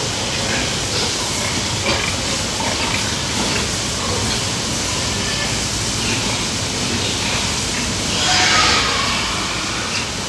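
Steady rushing noise, with a pig squealing briefly about eight seconds in.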